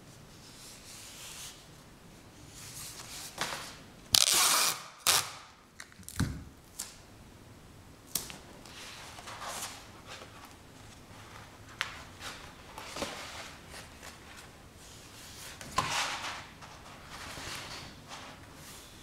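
Irregular rustling and scraping handling noises with a few sharp clicks. The loudest is a harsh burst under a second long, about four seconds in.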